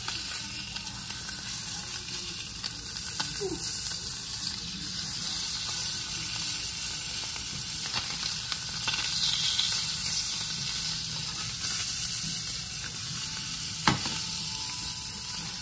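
Snapper fillets sizzling as they fry in garlic butter in a nonstick skillet, with a silicone spatula scraping and moving them in the pan. One sharp knock near the end.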